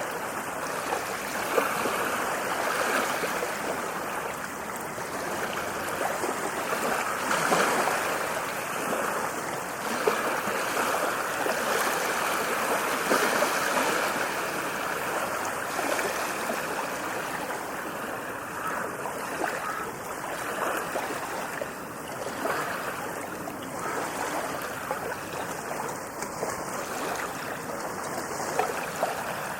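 Ocean surf: waves washing and breaking continuously in an even rush of noise that swells and eases a little, loudest around a quarter of the way in and again near the middle.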